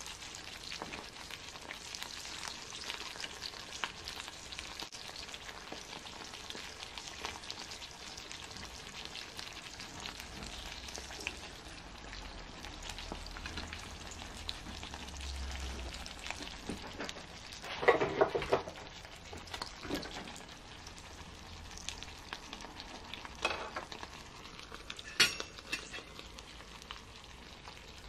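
Meat frying in a cast-iron skillet on a compact gas burner, a steady sizzle with fine crackling. A few short, louder bursts break through, the loudest about eighteen seconds in.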